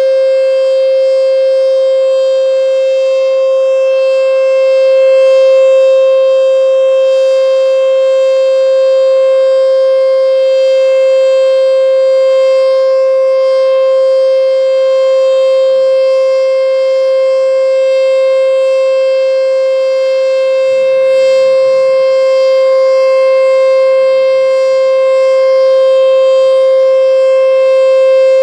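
American Signal Corporation T-121 electronic warning siren sounding the Alert signal: one steady tone with many overtones, held without rising or falling and swelling only slightly in loudness.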